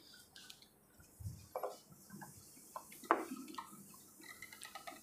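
Cloth duster wiping a whiteboard clean: a faint, irregular series of short rubs and squeaks.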